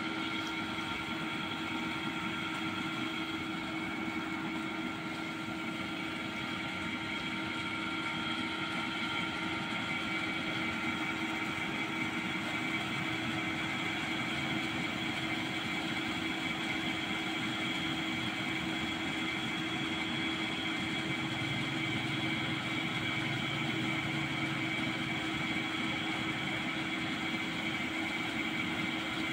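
Tubewell irrigation pump motor running with a steady, even hum, and water gushing from its outlet pipe into a concrete tank.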